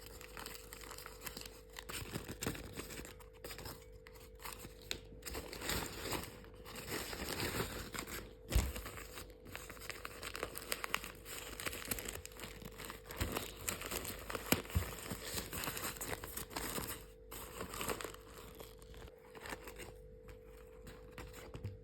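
Plastic wrapping being crinkled and torn, with many small clicks and a sharper knock about eight seconds in, over a faint steady hum.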